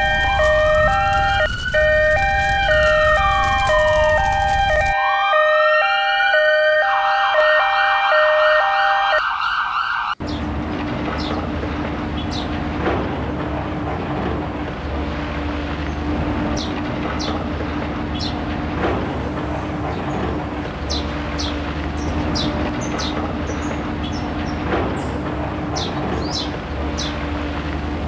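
Several emergency-vehicle sirens sounding together, a two-tone hi-lo siren layered with rising and falling wailing sirens. They stop abruptly about ten seconds in. A steady low hum and noise follow, with short high bird chirps scattered over it.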